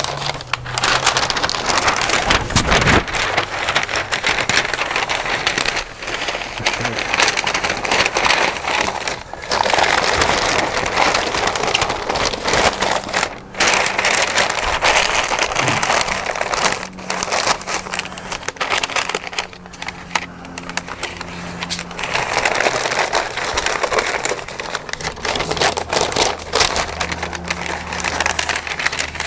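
Stiff butcher paper crinkling and rustling loudly as it is folded and pressed around a smoked beef brisket, with a few brief pauses.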